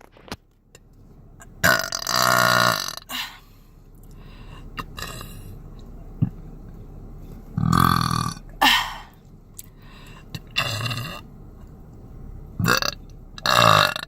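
A woman burping several times in a row after drinking diet Sprite: one long, loud burp about two seconds in, then a run of shorter burps in the middle and near the end.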